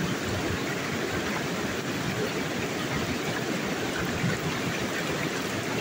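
Fast-flowing river water rushing over rocks: a steady, unbroken rush.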